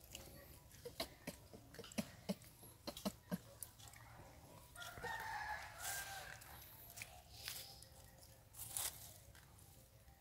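Light clicking and crackling of dry leaves and stones as long-tailed macaques pick through the litter on rocky ground, with one drawn-out call of about a second from another animal about five seconds in.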